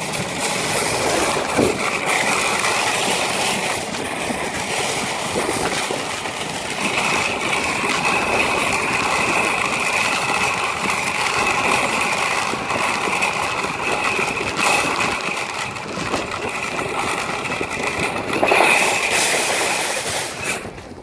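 A loaded shopping cart rattling steadily as its wheels roll over pavement, stopping just before the end, with a faint steady squeal from the wheels.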